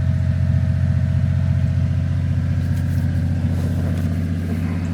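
Small three-cylinder engine of a 1996 Honda Acty kei truck running steadily at low revs, a continuous even pulsing hum.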